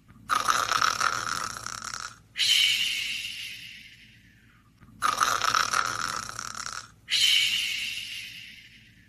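Snoring in a slow, regular rhythm: two full breath cycles, each a rasping snore of about two seconds that starts suddenly, followed by a longer breath that fades away, with the next snore starting near the end.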